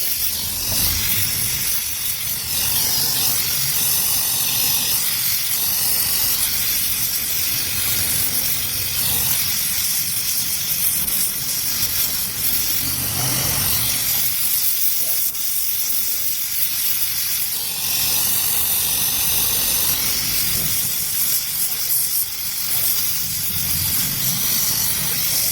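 Gas welding torch flame hissing steadily while aluminium is gas-welded.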